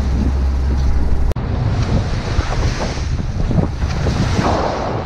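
Wind buffeting the microphone and waves rushing along the hull of a sailboat under sail in a choppy sea. A steady low hum in the first second or so cuts off abruptly, leaving only the wind and water noise.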